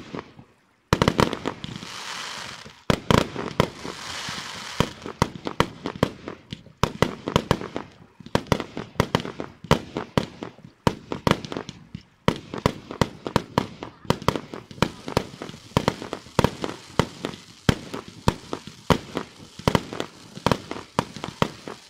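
Aerial fireworks display: after a second of quiet, a rapid, dense volley of bursting shells, several bangs a second, with stretches of crackling sparks.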